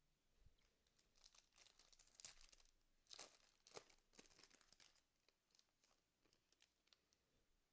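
Faint crinkling and tearing of a foil trading-card pack wrapper being torn open and handled, heaviest in the first few seconds and trailing off into a few light ticks.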